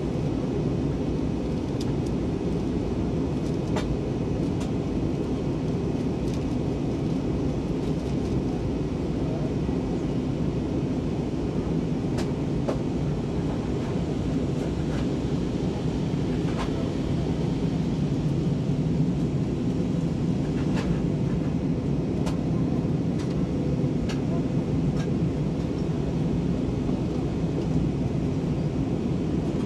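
Steady low rumble of engine and airflow inside the cabin of an Airbus A320 airliner in descent, heard from a window seat. It swells slightly a little past halfway, and a few faint clicks sound now and then.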